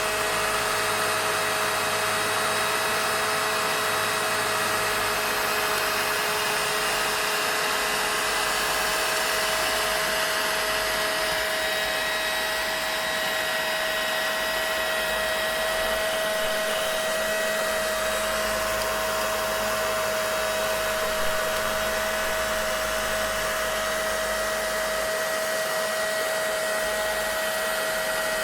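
Vacuum cleaner running steadily: an even whooshing noise with a constant motor whine.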